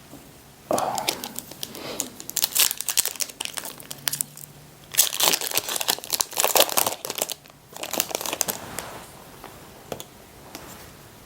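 Foil wrapper of a Disney Lorcana booster pack crinkling as it is handled and torn open, in three bouts of crackly rustling.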